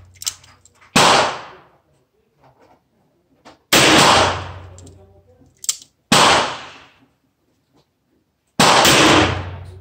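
Four shots from a Smith & Wesson Model 10 .38 Special revolver, fired singly about two and a half seconds apart. Each crack rings out and dies away over about a second.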